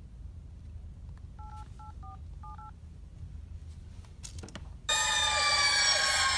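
A phone keypad dialing: about five quick touch-tone beeps. About five seconds in, a loud police siren sound effect starts suddenly.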